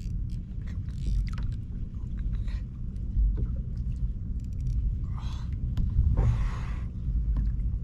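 Wind rumbling on the microphone aboard a fishing kayak at sea, with two short bursts of water splashing about five and six seconds in.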